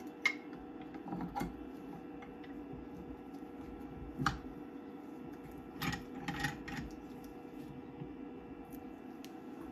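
Scattered clicks and knocks of a resin printer's build plate and angle bracket being handled and fitted onto the Z-axis arm of an Elegoo Mars 2 Pro, with a cluster of them about six seconds in, over a steady low hum.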